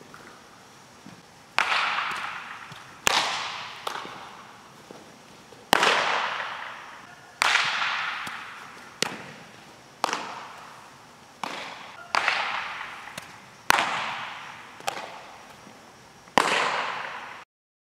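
Sharp cracks of baseball impacts during infield practice, about a dozen of them, roughly one every second and a half. Each rings out in a long echo in a large indoor hall. The sound cuts off suddenly near the end.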